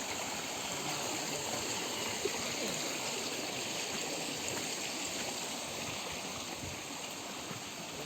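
Stream water flowing with a steady, even rush.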